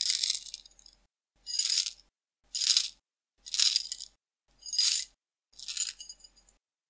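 Six short bursts of high metallic jingling, about one a second, with silence between them.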